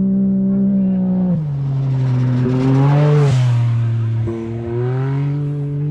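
Rally car engine running hard on a gravel stage as the car goes by, its note dropping and rising with gear changes, with a swell of tyre and gravel noise as it passes closest about three seconds in.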